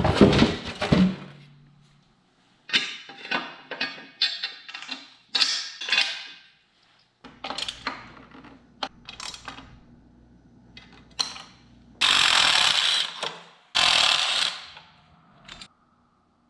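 Hand-tool and parts-handling noises from reassembling a motorcycle: a run of short scrapes and clicks of metal parts and wrenches, then two hissing bursts of about a second and a half each near the end.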